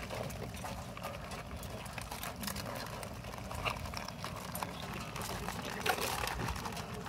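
Live blue crabs moving in a plastic crab basket: irregular small clicks and scrapes of shells and legs against each other and the basket. A sharper clack comes near the end as metal tongs go in among them.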